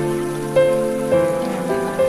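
Background music: a slow melody of held notes, a new note starting about every half second.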